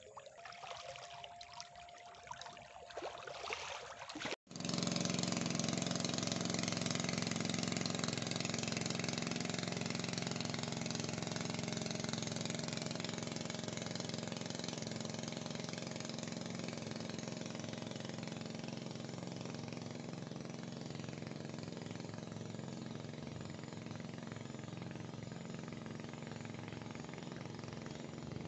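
Small boat's motor running steadily, a loud continuous drone with a low hum, cutting in abruptly about four seconds in after a few quieter seconds.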